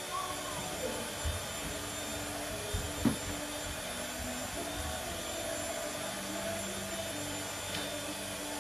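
Steady mechanical hum, with a few soft thumps in the first three seconds from two Samoyeds' paws landing on a hardwood floor as they jump for a flirt pole lure.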